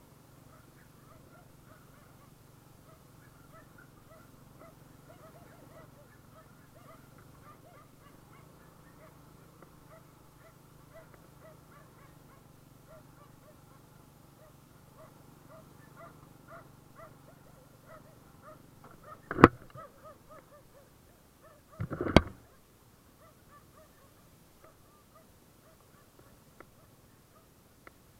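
Faint, muffled motorbike running over sand, heard through a sealed action-camera case, with two sharp loud knocks a few seconds apart about two-thirds of the way through as the mount jolts.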